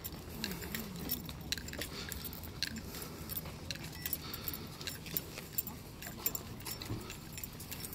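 Irregular light clicks and jingling from the person filming as they walk along a concrete pier, with faint voices in the background.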